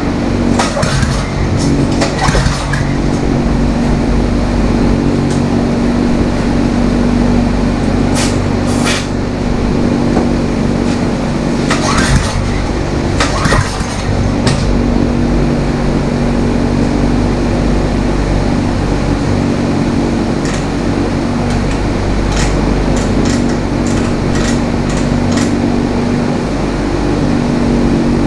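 Single-cylinder flathead Briggs & Stratton 5 hp engine running at a steady speed, with a few short metallic clinks from tools at intervals.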